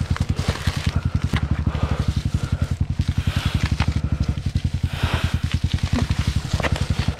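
Yamaha trail bike's single-cylinder four-stroke engine idling with an even, rapid beat, over dry grass rustling and crackling as it is pulled by hand, with a few sharp snaps near the end.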